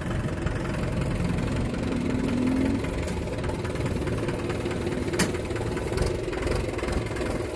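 Mahindra tractor's diesel engine running steadily, with a single sharp click about five seconds in.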